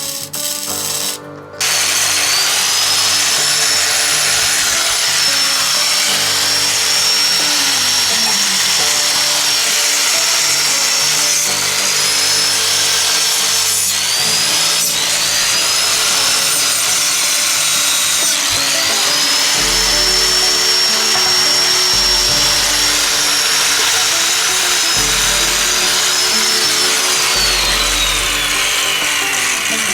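High-speed power tool running, its high-pitched whine dipping briefly several times as it bears on the work and winding down near the end. Background music plays alongside.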